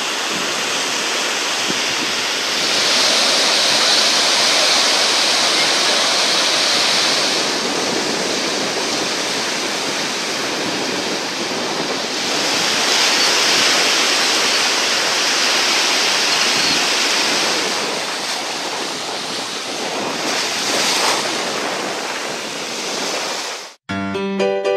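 Baltic Sea surf washing onto a sandy shore: a steady rushing noise that swells twice as waves break. Just before the end it cuts off and piano music begins.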